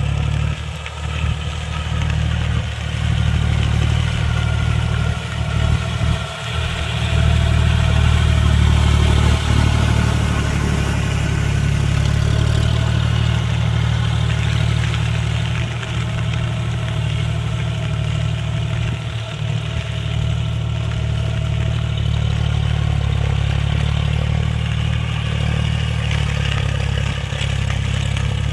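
John Deere tractor's diesel engine running steadily, a little louder for a few seconds partway through.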